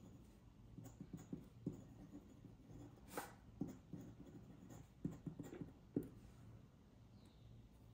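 Nib of a quill-style dip pen scratching on paper in short, faint strokes as words are handwritten, with sharper ticks about three and six seconds in. The strokes stop after about six and a half seconds.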